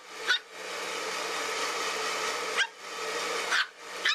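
Blow-dryer blowing in spells that stop and start, while a chihuahua puppy gives a few short, sharp barks, each in a break in the dryer's noise.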